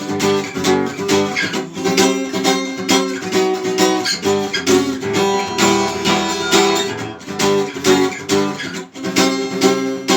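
Acoustic guitar strummed in a steady rhythm, playing chords between sung verses.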